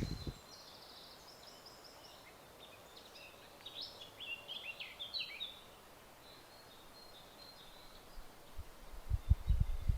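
Small birds chirping and twittering over quiet outdoor background noise, busiest about halfway through. Low rumbling thumps come in near the end.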